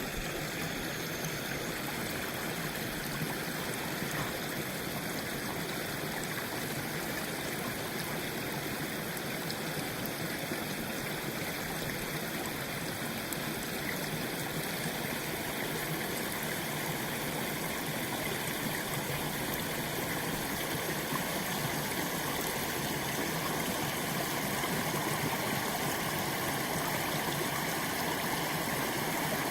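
Water running steadily through a breach punched in a beaver dam, a continuous rush that slowly gets a little louder.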